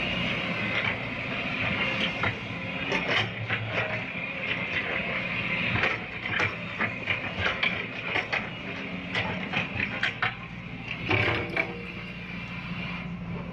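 CAT excavator's diesel engine running steadily under digging work, with a string of irregular clanks and knocks from the working machine.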